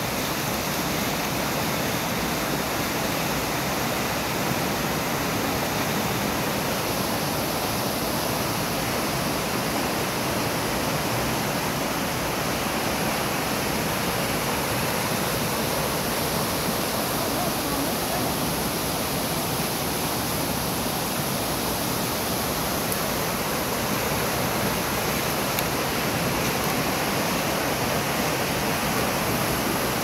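River rushing over rocks in white-water rapids: a steady, unbroken roar of water.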